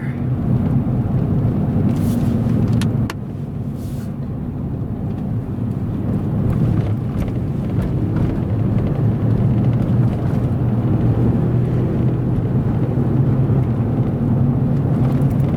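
Car driving along, heard from inside the cabin: a steady low engine and road hum that dips about three seconds in and then builds again, with a few faint clicks.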